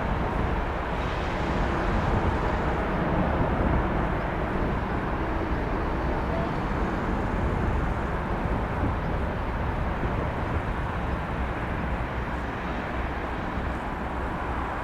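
Steady rumble of a large jet aircraft's engines, even in level throughout, with most of the sound low and deep.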